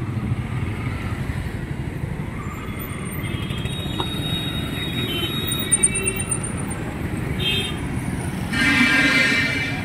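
Street traffic running steadily, with vehicle horns honking now and then; the loudest honk comes about nine seconds in and lasts about a second.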